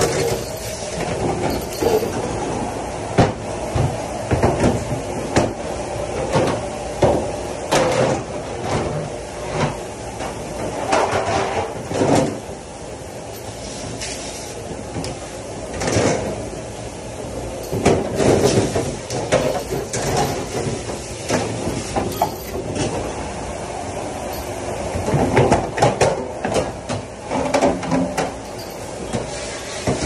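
Dish station clatter: plastic food containers, metal pans and plastic dish racks knocking and sliding on a stainless steel counter in irregular clanks over a steady rush of background noise.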